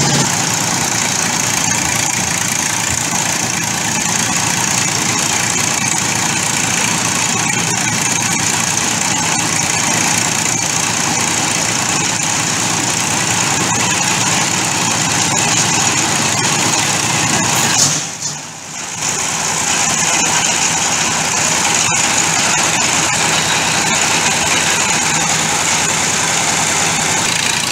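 Engines of a concrete mixer and a piling winch rig running steadily while a bored pile is concreted through a tremie funnel. The level drops briefly about two-thirds of the way through.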